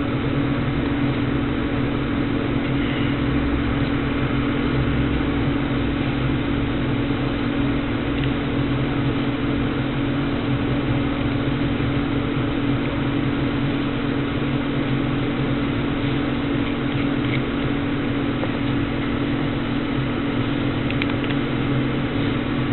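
A steady mechanical hum with a strong low tone and an even hiss over it. One or two faint ticks come near the end.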